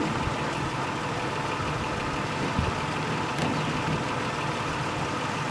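Steady running noise of a vehicle moving slowly along a gravel road, an even hiss with a low hum beneath.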